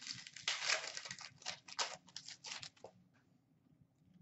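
Trading card pack wrapper and cards being handled by hand: a run of crinkling and rustling lasting about three seconds.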